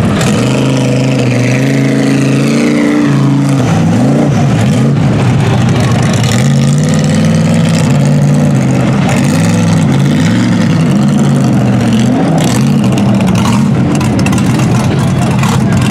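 Lifted mud truck's engine revving through a mud pit, its pitch climbing and falling back repeatedly as the throttle is worked.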